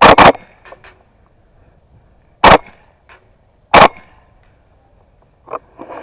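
WE M4 gas blowback airsoft rifle firing semi-auto: a quick pair of short, sharp shots at the start, then single shots about two and a half and almost four seconds in.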